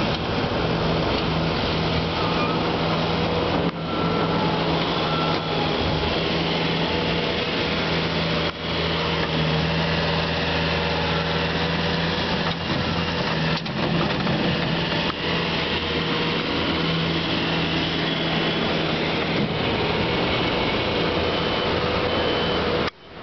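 Bobcat S250 skid-steer loader's diesel engine running steadily while the machine works snow, a constant hum with mechanical noise over it.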